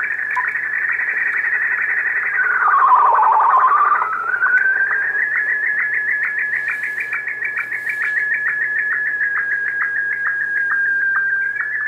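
A data-mode signal received on the 20-metre band, heard through the ICOM IC-7800 transceiver's audio as a steady whistling tone with a rapid, regular ticking. The pitch swoops down and climbs back about three seconds in.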